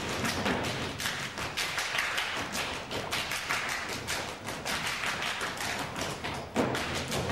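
Folk dancers' feet stepping and stamping on the stage floor in a quick, even rhythm of many thuds and taps.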